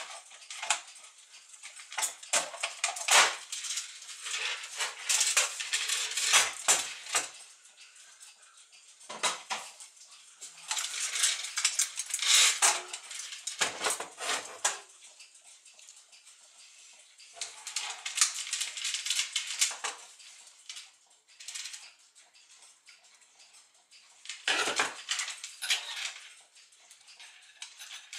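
Clinking and rattling of metal parts as a Gustav Becker floor clock's brass movement and its chains are handled and turned over on a table, in bursts of sharp clicks with short pauses.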